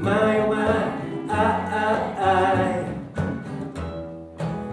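Acoustic folk band playing live: acoustic guitar, accordion, double bass and hand drum. Held melody notes sound over the strumming for about the first three seconds, then thin out to bass notes and a few strums and drum hits near the end.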